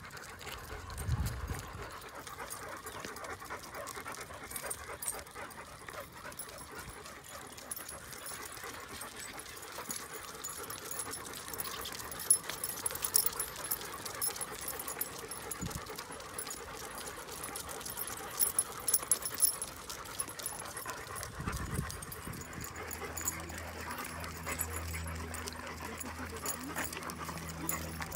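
Dogs panting at close range, with light clicks running through it. A low steady hum comes in about three-quarters of the way through.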